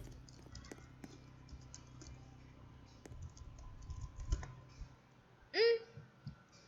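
Soft, scattered clicks and taps. About five and a half seconds in comes one short, loud squeak that rises in pitch.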